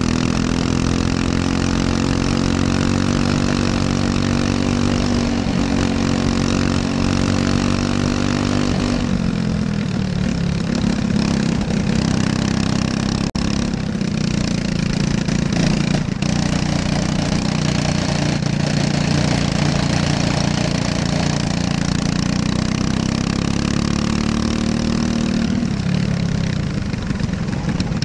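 Briggs & Stratton LO206 single-cylinder four-stroke kart engine running at race pace, heard from on board. Its pitch climbs slowly for several seconds, drops sharply about nine seconds in, climbs again, and falls once more near the end.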